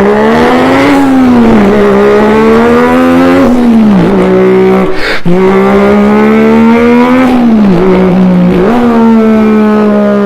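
A man's voice imitating a car engine: a continuous buzzing hum that climbs in pitch and then drops back sharply, again and again, like a car accelerating up through its gears. There are several such shifts, with a brief break around the middle.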